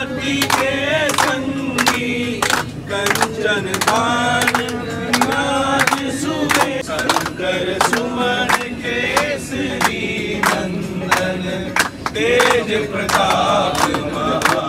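A group of men singing a devotional chant together, with steady rhythmic hand clapping about two to three claps a second.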